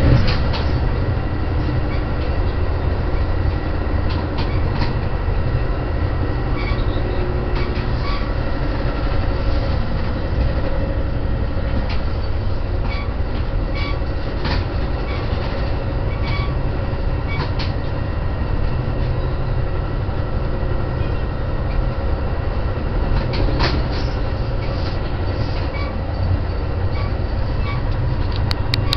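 Interior of a Metra Rock Island diesel commuter train running, heard from inside the passenger car: a steady low noise with a few faint steady tones and occasional short clicks and rattles.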